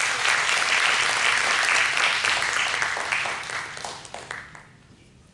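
Theatre audience applauding, the clapping dying away about four seconds in.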